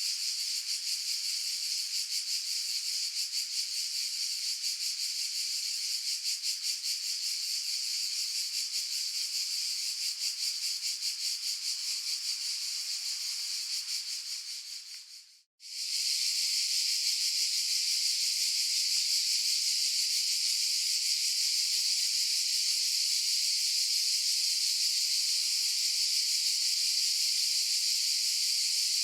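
Cicadas buzzing in a continuous high-pitched drone with a fast flutter. About halfway through, the buzz fades out to a moment of silence, then starts again abruptly and runs on steadily.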